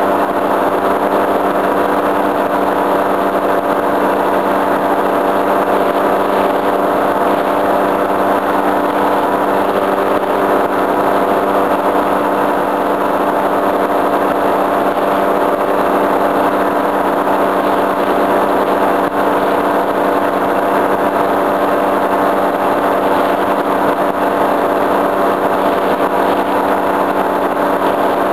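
Tandem paramotor trike's engine and caged propeller running steadily at cruise power in flight, an even unchanging drone with no change in pitch.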